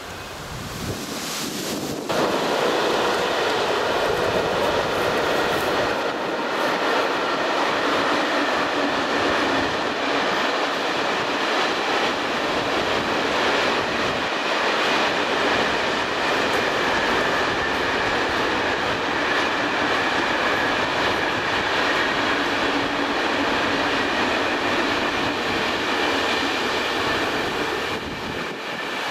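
Long container freight train rolling steadily across a stone arch viaduct: a continuous rush and rumble of wagon wheels on the rails with a faint steady whine. It comes up suddenly about two seconds in and eases off near the end as the last wagons pass.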